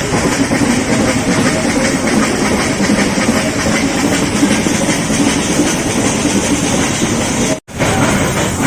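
Nilgiri Mountain Railway toy train running along the track, heard from on board as a steady loud rumble and rattle of the carriages. The sound cuts out for a split second near the end.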